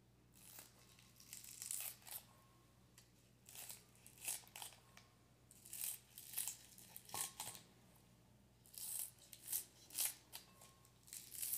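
Kitchen shears snipping through green onion stalks, crisp cuts coming in four short runs of quick snips.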